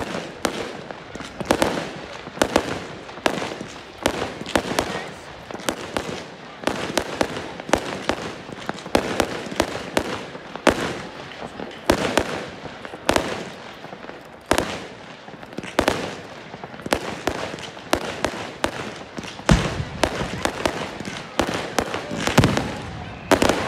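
Consumer aerial fireworks firing and bursting overhead: a quick, irregular run of sharp bangs and crackles, about one to two a second. Two heavier, deeper booms come near the end.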